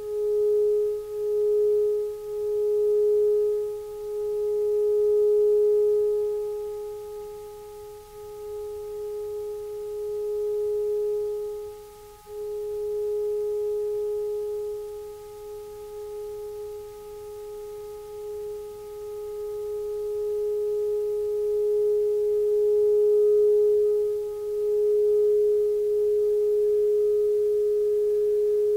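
Sustained drone on a single held pitch, a nearly pure tone with faint overtones. In the first few seconds it pulses, beating about once a second, then it holds with slow swells and fades and a brief dip about twelve seconds in.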